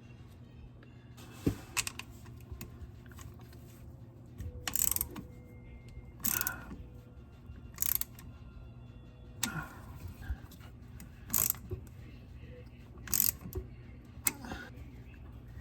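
Hand tools being worked on the underside of a VW Vanagon: about seven short metallic clinks and scrapes at irregular intervals over a steady low hum.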